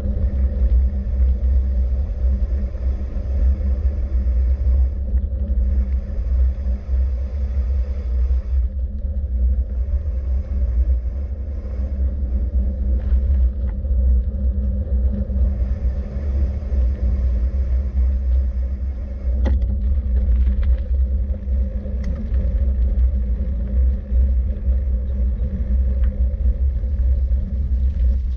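Steady low rumble of travel noise with a faint hum, the level wavering slightly, with a few faint clicks scattered through it.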